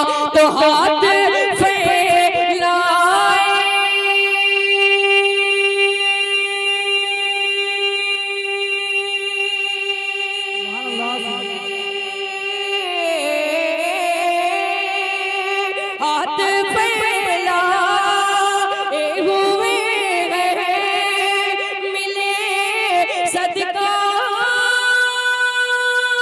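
Naat singing: a solo male voice in a long wordless passage, bending and wavering through the melody over one steadily held note.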